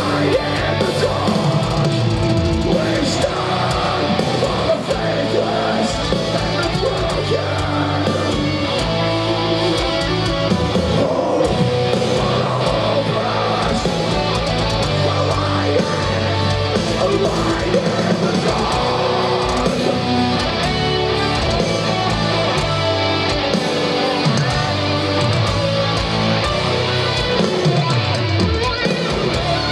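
Metalcore band playing live: heavy electric guitars, bass and drums, steady and loud, heard from within the audience.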